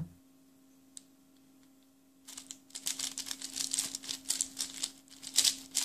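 Plastic 4x4x4 speed cube (MoYu AoSu) being turned fast through an edge 3-cycle algorithm. There is a single click about a second in, then a rapid run of clacking layer turns lasting about three and a half seconds. A faint steady hum sits underneath.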